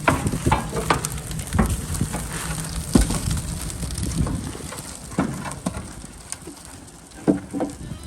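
Wood fire crackling and sizzling in a wood boiler's firebox, with irregular sharp pops; the loudest pops come about three seconds in and again near the end.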